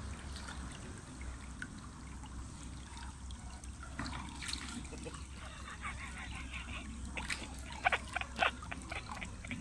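A Dutch shepherd snapping its muzzle at swimming-pool water, making small splashes, with a run of sharper, louder splashes near the end, over a low steady hum.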